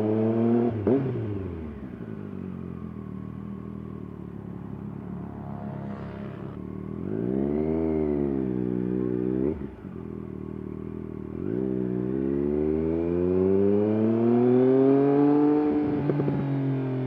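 Triumph Daytona 765's three-cylinder engine and exhaust under way. The pitch falls as the revs drop about a second in and runs lower for several seconds. It then rises and falls about halfway through, and climbs steadily to its loudest before dropping sharply near the end.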